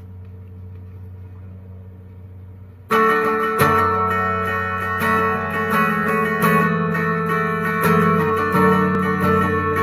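Squier electric guitar playing picked notes and chords that ring over sustained low notes, coming in loudly about three seconds in after a soft steady low hum.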